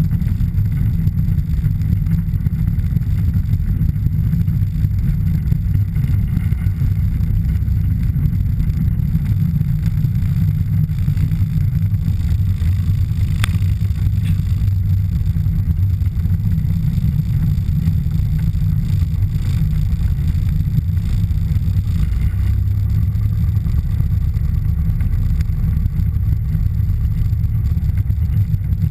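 Piper PA-28-161 Warrior III's 160 hp Lycoming O-320 four-cylinder engine running steadily at low power while the plane taxis, heard from inside the cockpit. A single click about halfway through.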